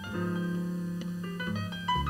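Jazz piano solo in a bolero: a grand piano playing runs of single notes over chords, with a plucked upright double bass holding low notes underneath.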